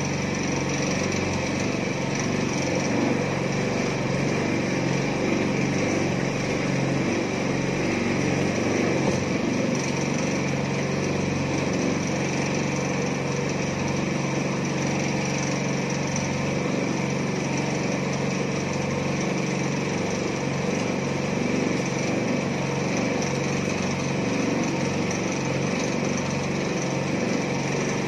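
Small petrol engine of a mini concrete mixer running steadily at a constant speed.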